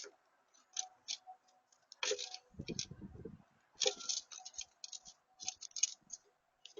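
Birds pecking at a feeder: irregular sharp clicks and taps, some in quick clusters, with a brief low rumble about two and a half seconds in.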